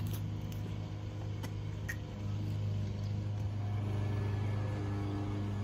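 A steady low mechanical hum, growing slightly fuller about two seconds in, with a few faint clicks early on.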